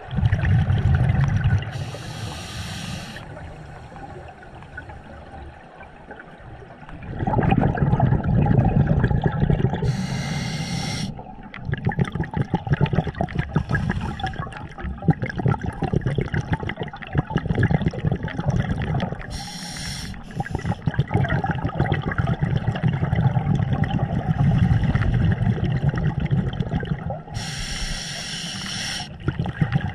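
Scuba breathing through a regulator, heard underwater: a short hissing inhale about every eight seconds, four in all, each followed by a long stream of exhaled bubbles bubbling and crackling past the camera.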